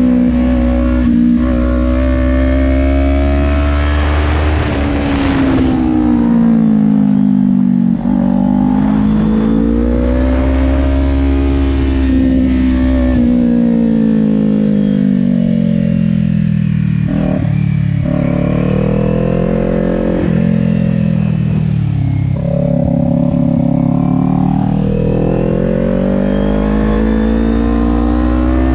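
2020 Kawasaki Ninja 400's parallel-twin engine heard from on board at speed, its pitch rising and falling again and again as the rider accelerates out of each corner and rolls off into the next.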